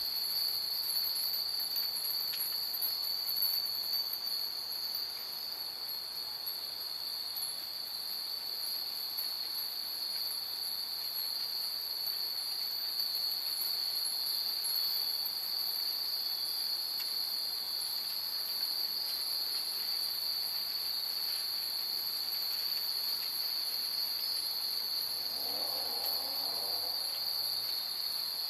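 Many Japanese furin wind chimes tinkling faintly over a steady, high-pitched insect trill.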